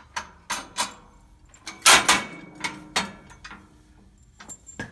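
Metal clicks, clanks and rattles of a cable machine's pulley and bracket hardware being unfastened and taken off, with the loudest knock just before two seconds in.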